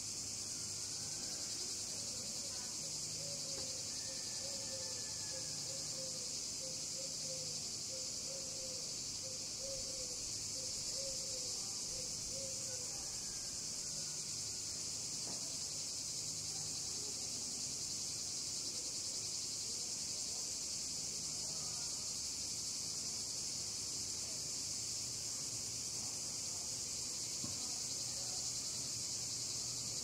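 Cicadas shrilling in a steady, unbroken high-pitched chorus, with faint short repeated notes in the background during the first half.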